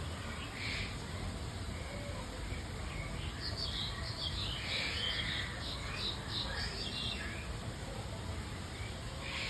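Bird calls: a run of short, high chirps, thickest in the middle, over a steady low rumble of background noise.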